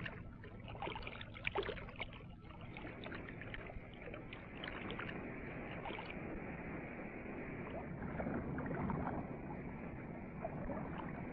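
River water rushing steadily, with scattered small splashes in the first few seconds.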